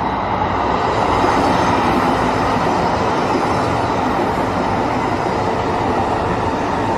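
Metro Blue Line light-rail train running steadily on the track: a continuous rumble of wheels and running gear with a faint steady whine over it.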